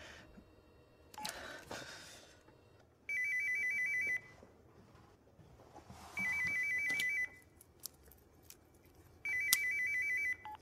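Electronic telephone ringing with a fast warbling trill: three rings of about a second each, roughly three seconds apart.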